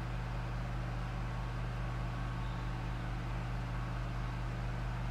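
A steady low hum over an even hiss, like a machine running without a break.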